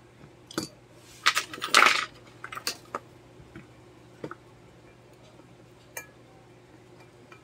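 Small metal tools and parts clinking and clattering on a workbench as they are handled: a quick run of clinks about a second and a half in, then a few scattered single clicks.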